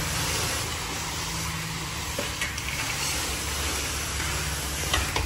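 Self-serve car wash pressure wand spraying a jet of water against a car's side panel: a steady hiss with a low hum underneath, and a brief knock near the end.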